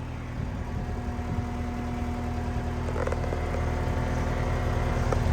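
Cat 246D3 skid steer's diesel engine idling steadily, growing gradually louder, with a faint click about three seconds in.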